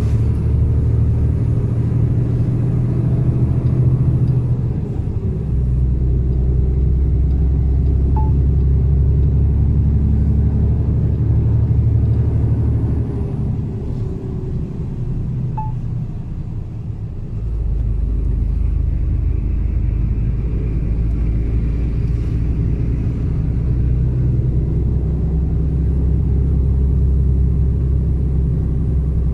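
Mercedes-Benz Actros truck's diesel engine running under way, a low steady drone. Its note shifts about five seconds in, eases off for a few seconds past the middle, then pulls again from about seventeen seconds.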